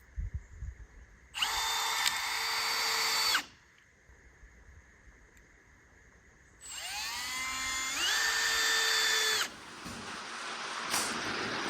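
A handheld electric power tool, drill-like, run twice: first a short steady whine, then a longer run that rises in pitch as the trigger is squeezed before holding steady. Both runs cut off abruptly. Near the end a steady hiss of rain on the shop's roof comes up.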